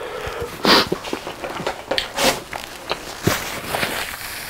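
Paper tissue rustling and crinkling as it is handled and pressed to the mouth, with a few soft knocks in between.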